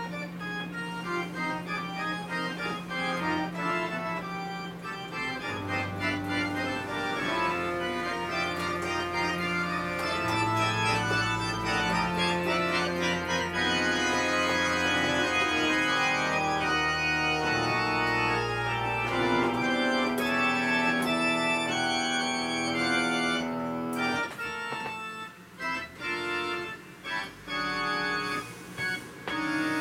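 Two-manual digital organ playing a slow improvisation: sustained chords over held low bass notes that change every second or two. Near the end the chords become short and detached, with brief gaps between them.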